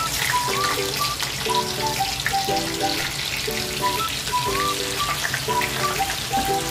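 Tofu slabs sizzling in hot oil in a frying pan as they are laid in with tongs, under background music with a repeating melody.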